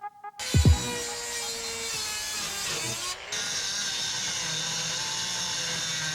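Dremel rotary tool running at speed, a steady high-pitched whine, dipping briefly about three seconds in before running on steadily. A music beat with a low bass drop ends as the tool starts.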